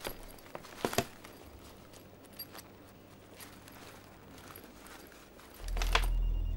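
A leather handbag being opened and searched: a few sharp clicks of its clasp and fittings in the first second, then faint rustling and small ticks. Near the end a low droning background music comes in.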